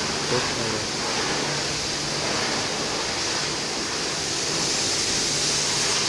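High-pressure water jet from a pressure washer spraying a car, a steady hiss.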